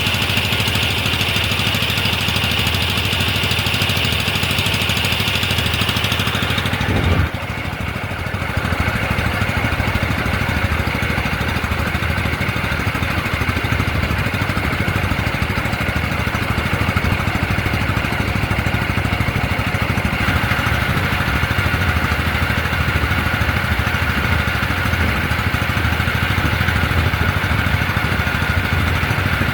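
An engine running steadily at a low hum, with an abrupt change in the sound about seven seconds in.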